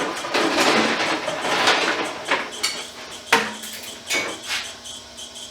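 Motorized Stripmeister wire stripper running as a length of number 12 copper wire is fed through it, with metallic clattering and rattling for the first two seconds, then separate sharp clicks, the loudest about three seconds in, over a faint steady hum.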